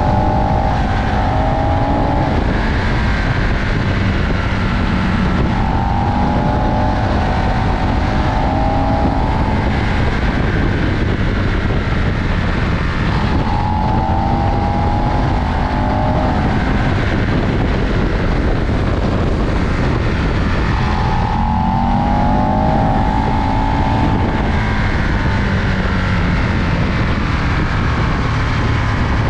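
Aprilia RSV 1000 R Tuono's V-twin engine pulling hard on the move, its pitch rising and falling several times, over a heavy rush of wind and road noise.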